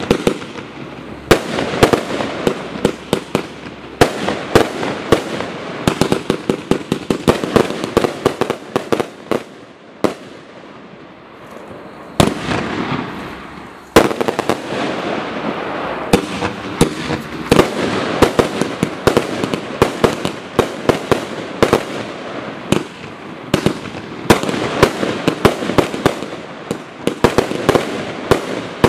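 A 133-shot fireworks cake with 30 mm and 55 mm tubes firing in rapid succession: a dense string of sharp launch thumps and shell bursts. The shots ease to softer crackling about ten seconds in, then a loud bang about fourteen seconds in brings back the rapid volleys.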